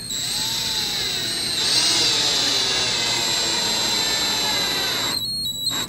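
20-volt cordless drill driving a screw through a vinyl sticker into an RC truck body: a steady motor whine for about five seconds that stops shortly before the end, with a short blip after it.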